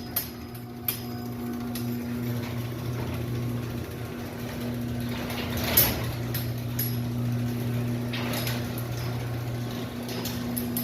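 Electric garage door opener motor running the door down, a steady hum with rattling and a sharp knock about six seconds in, on a test of its freshly adjusted down-travel limit.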